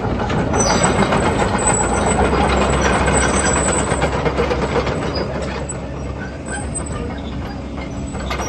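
JCB JS130 tracked excavator's diesel engine running, louder for the first few seconds and easing slightly after about five seconds.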